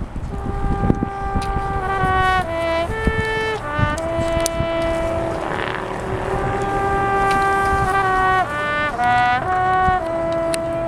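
Marching band brass playing long held chords that shift in steps from one chord to the next, with a few drum hits.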